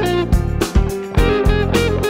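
Background music: guitar over bass with a steady drum beat.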